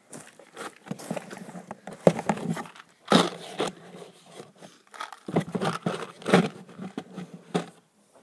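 Irregular rustling and scraping with sharp clicks, in bursts, right next to the phone's microphone as a cardboard box is moved up against it.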